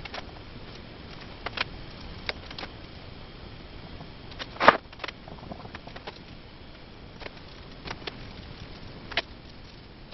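Scattered light knocks and taps from handling things while painting, about eight in all, with a louder knock about halfway through, over a steady faint hiss.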